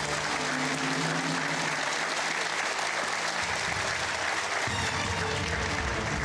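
Studio audience applauding, with the game show's music playing underneath.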